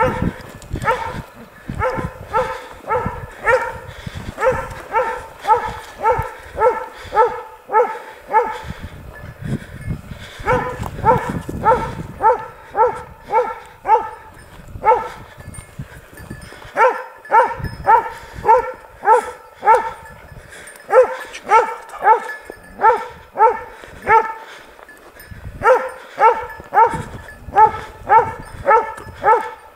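Hunting dog barking steadily, about two barks a second, with a few short pauses.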